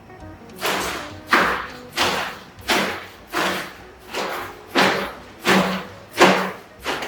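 A Foley prop struck in a steady rhythm: about ten sharp, noisy hits, roughly one and a half a second, each trailing off quickly.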